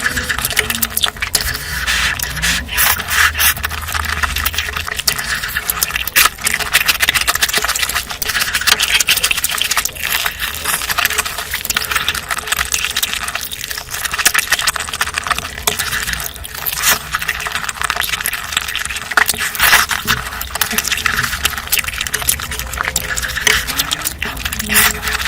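Close-miked eating sounds: continuous wet chewing and mouth smacking with many small crackly clicks.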